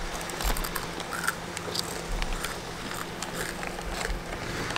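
People chewing chickpea hummus crisps, a run of short, irregular crunches.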